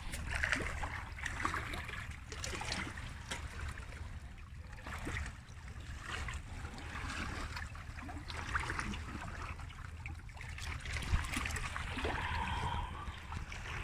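Seawater sloshing and trickling among shoreline rocks in irregular, shifting washes with small splashes, over a steady low wind rumble on the microphone.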